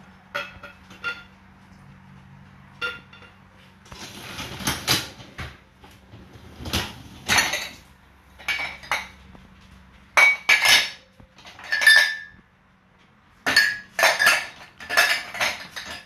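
Crockery, glasses and cutlery clinking and rattling in a dishwasher's racks as they are handled and shifted, in irregular clusters of sharp clinks that grow louder in the second half, over a faint steady low hum.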